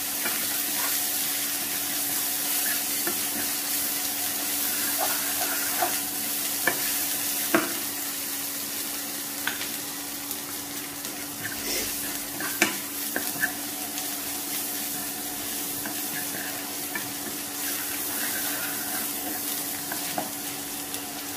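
Onions with garlic-ginger paste and ground spices sizzling steadily in oil in a pan while being stirred and fried down for a curry base, with a few sharp knocks of the spatula against the pan.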